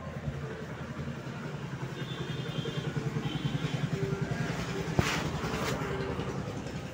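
A motorcycle engine running nearby at a steady idle with a quick, even beat, growing louder over the first few seconds and easing off near the end. There is a sharp click about five seconds in.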